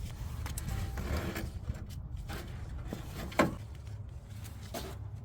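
Handling noises from working in a truck's engine bay while refitting the ignition cable onto a spark plug: small scrapes and clicks over a low steady rumble, with one sharp click about three and a half seconds in.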